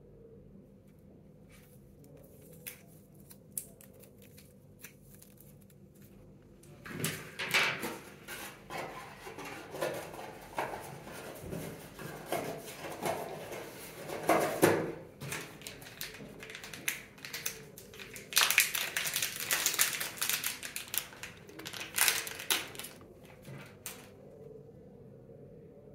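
Earphone packaging being handled: a cardboard box and its insert rustling, scraping and clicking, with a clear plastic bag of spare ear tips crinkling. A few scattered clicks come first, then two busy stretches of handling noise.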